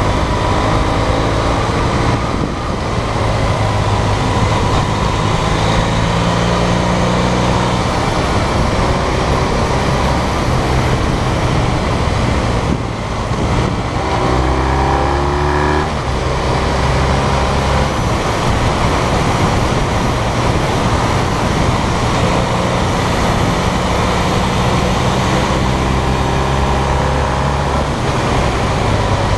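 BMW GS adventure motorcycle's twin-cylinder engine running at road speed, with heavy wind rush over a camera mounted on the bike. About halfway through the engine note dips and then climbs again as the speed changes.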